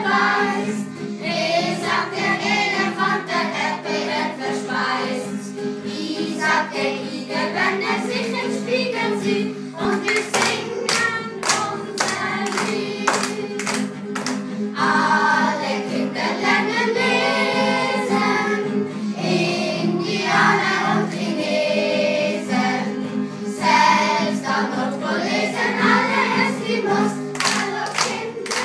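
A group of young children singing a song together and clapping along in rhythm, the clapping mostly from about ten seconds in.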